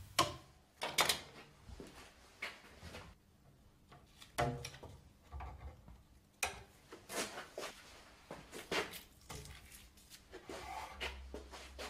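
Irregular light knocks, clicks and rubbing from hands handling a bowstring, arrow and small tools at a wooden workbench.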